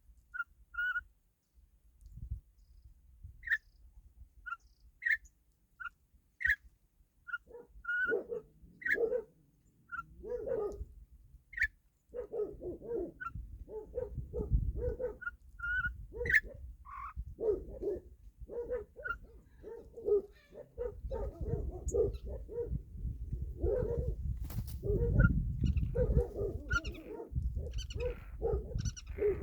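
Small birds chirping in short repeated calls, joined from about eight seconds in by louder, lower animal calls that grow busier toward the end.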